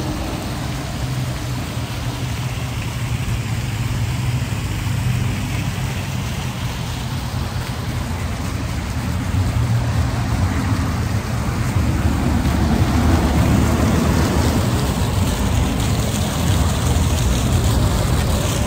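Fountain water splashing into a pond, a steady rain-like spray, over a low rumble that grows louder from about ten seconds in.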